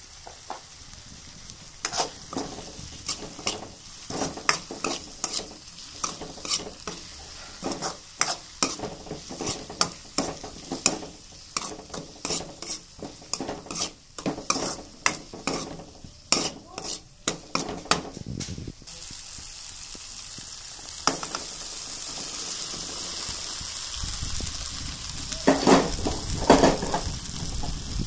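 Onions, tomatoes and spices frying in an aluminium kadai: sizzling while a steel spoon stirs and scrapes them, with many quick taps of the spoon on the pan. After about eighteen seconds the sizzle turns to a steadier, louder hiss, and near the end a louder clatter comes as chopped okra goes into the pan.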